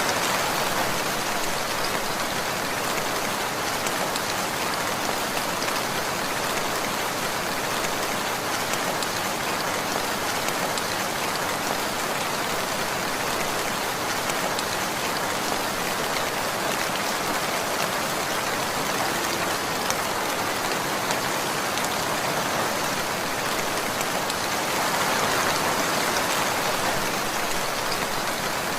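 Steady rainfall with a dense patter of drops on a surface, swelling slightly louder near the end.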